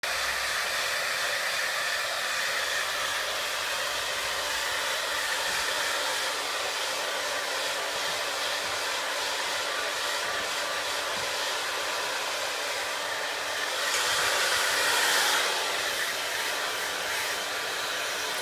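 Handheld hair dryer blowing steadily, drying a child's hair, with a short surge in loudness about three quarters of the way through.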